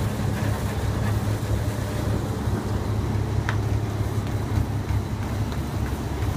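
A lobster boat's engine running steadily underway, a constant low drone, with a few faint ticks on deck.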